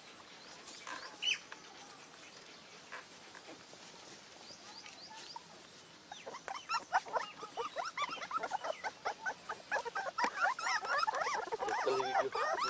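Litter of young puppies squealing and whining, many short high squeaks overlapping. Sparse and faint at first, they become a busy, louder chorus from about halfway.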